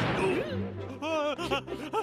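A cartoon crash sound effect of a body hitting the ground right at the start, then playful background music with short bending notes.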